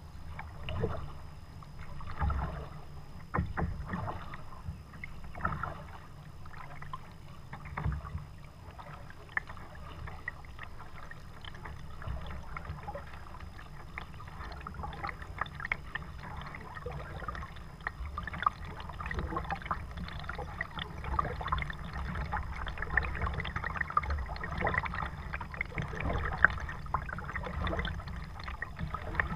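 Kayak paddle strokes dipping into calm water, with splashing and water dripping off the blades. The strokes come as a few separate splashes at first and turn into a denser, near-continuous trickle after about twelve seconds.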